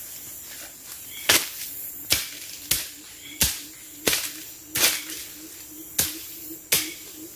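A hand tool chopping into the forest floor to loosen the soil: about eight sharp blows at an even pace, roughly one every 0.7 seconds, over a faint steady hum.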